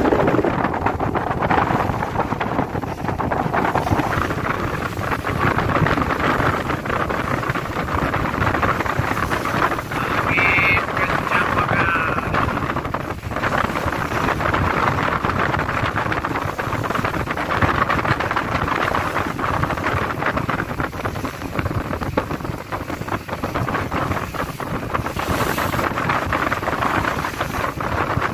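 Strong sea wind buffeting the microphone as a steady, heavy rush, with a brief high tone about ten seconds in.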